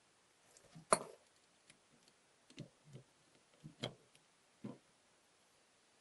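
Scattered metal clicks and light knocks from an old glass-door mortise lock's mechanism, its spring and follower being worked by hand: a sharp click about a second in, a few softer knocks, then another sharp click just before four seconds and one more shortly after.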